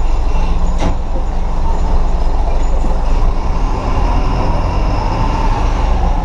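City bus engine running steadily, heard from the driver's seat inside a Mercedes-Benz bus as it moves in traffic, with one sharp click just under a second in.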